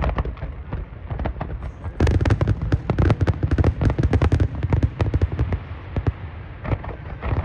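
Fireworks display: scattered bangs, then a dense, rapid run of cracks and crackles from about two seconds in until past the middle, thinning to scattered pops toward the end.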